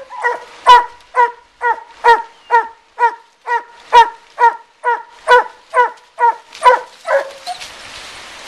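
Treeing Walker coonhound giving a steady chop bark up a den tree, about two barks a second: the sign that the dog has a raccoon treed. The barking stops about seven seconds in.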